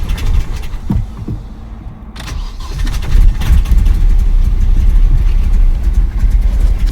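A hard-starting car engine cranking, then catching about two seconds in and running loudly with an uneven, rising and falling level.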